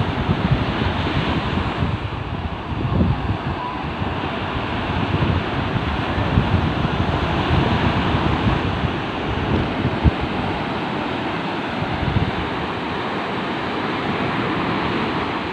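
Sea waves washing onto a beach in a steady surf hiss, with wind gusting against the microphone in low rumbles.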